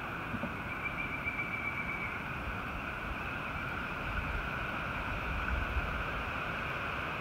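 Steady high-pitched outdoor background hiss, with a few light clicks in the first two seconds and low wind rumble on the microphone about four to six seconds in.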